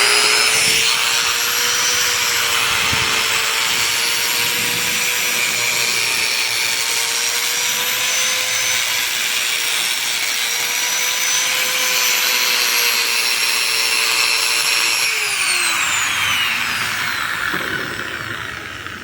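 Black & Decker G720 angle grinder running free at full speed with a loud, steady high whine, then switched off about fifteen seconds in and winding down as the pitch falls. With its lower armature bearing freshly replaced, the deep rumble it made before is gone: it is noisy but running normally.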